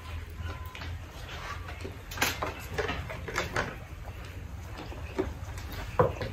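Mealtime table sounds: a string of clicks and taps from glasses and plates on a wooden table, with a cluster a little over two seconds in and one sharp tap about six seconds in, over a steady low hum.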